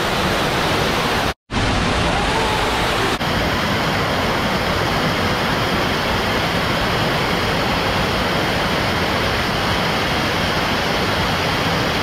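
Waterfall pouring and splashing close by, a loud steady rushing hiss, cut off to silence for a moment about a second and a half in.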